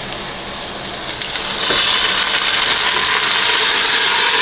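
Seasoned beef chunks tipped from a steel bowl into a hot pot of frying onions, the sizzle swelling sharply about a second and a half in. Near the end the meat's seasoning broth is poured in on top.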